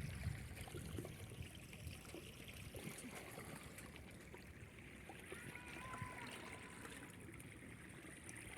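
Faint water trickling and lapping along the hull of a small sailing yacht moving slowly under sail.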